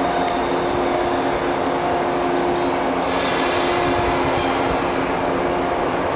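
Shinano Railway 115-series electric multiple unit with a steady electrical hum, starting to pull away from the platform. A brief hiss comes about three seconds in.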